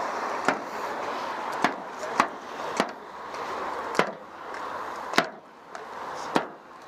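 A series of sharp knocks, about one every second at uneven spacing, over a steady background hubbub.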